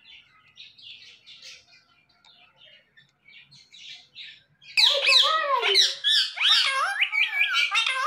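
Indian ringneck parrot chattering softly in short high chirps, then about five seconds in breaking into loud squawking calls that swoop up and down in pitch.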